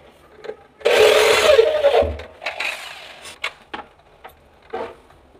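Hand screwdriver driving a screw through a cabinet hinge's mounting plate into the board: a loud grinding creak about a second in that lasts about a second, a shorter, fainter one after it, and small clicks of the screwdriver.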